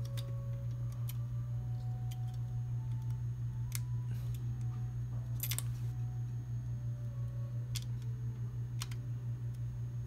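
A steady low hum, with about six small, sharp clicks of a flat ribbon cable and its connector being handled and fitted into a circuit board; the loudest is a quick double click about five and a half seconds in.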